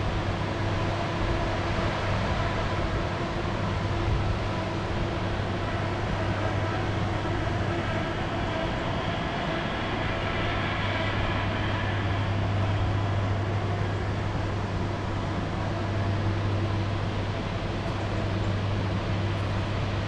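Hydroelectric power station running: a steady, loud machine hum with a strong low drone and fainter higher tones over an even broad noise.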